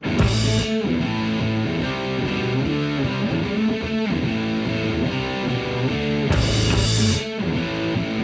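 Background music with electric guitar, starting abruptly at the start after a brief cut to silence.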